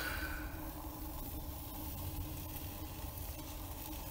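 Raw steaks sizzling on the hot grate of a charcoal grill as they are laid down over the coals: a steady low hiss.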